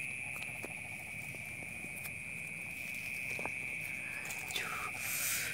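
Night insects trilling steadily in a continuous chorus, with a few small clicks and a brief rustling swish near the end.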